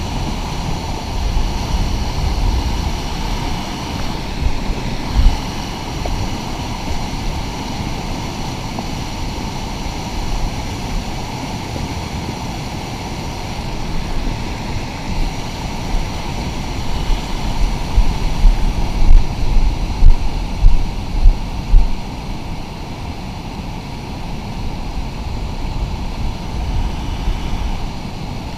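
Rushing river rapids, a steady roar of white water, with gusts of wind buffeting the camera microphone in a run of low bumps about two-thirds of the way through.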